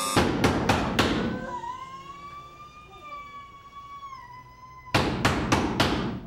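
Heavy pounding on a front door, four blows in about a second, then a single long wavering wail, then four more hard blows near the end.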